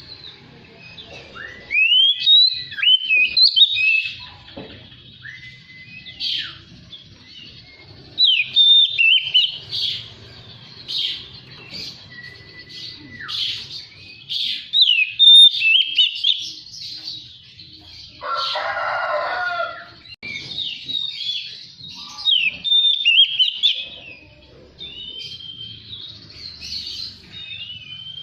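Oriental magpie-robin (kacer) singing: a fast, varied run of whistled phrases that rise and fall, with a few long level whistles and a brief harsh rasping note about two-thirds through.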